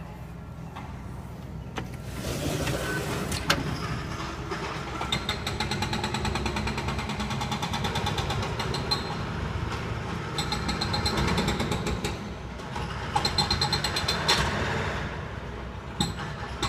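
Hydraulic demolition hammers on excavators pounding concrete floors in fast, steady runs of blows, with short breaks between runs, over the drone of the machines' diesel engines. The din gets louder about two seconds in.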